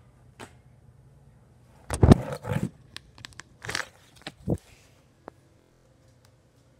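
Handling noise from the phone being picked up and moved: a burst of loud rustles and knocks about two seconds in, then a few shorter knocks.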